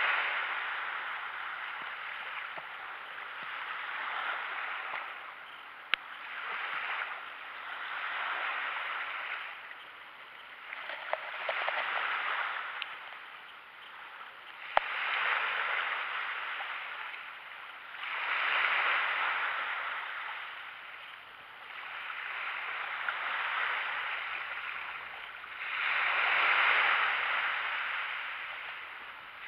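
Small waves breaking and washing up a sandy beach, a surge of hiss every few seconds that swells and fades away. Two short sharp clicks sound about 6 and 15 seconds in.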